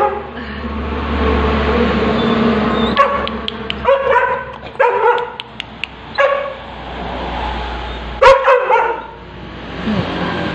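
A dog giving short, high-pitched calls, about five of them spread out, the loudest about eight seconds in.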